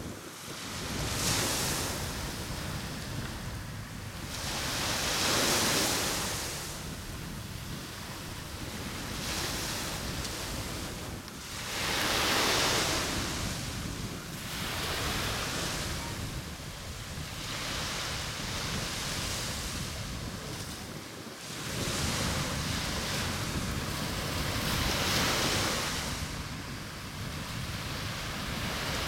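Surf washing up a sandy beach, its hiss swelling and fading every few seconds, over a steady low rumble of wind on the microphone.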